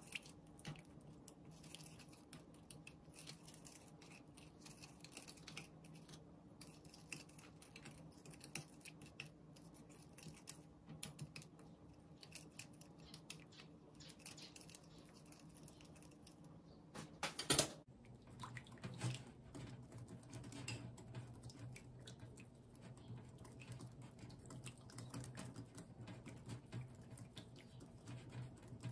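A plastic spoon stirring and scraping a thick miso sauce in a glass bowl, with many light clicks against the glass. About two-thirds of the way in comes one sharp knock, after which a wire whisk beats the sauce in the bowl with quick light ticks, over a faint steady hum.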